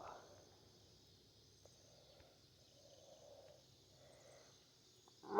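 Near silence: a faint steady high insect drone over quiet field ambience. A loud, steady-pitched call begins right at the very end.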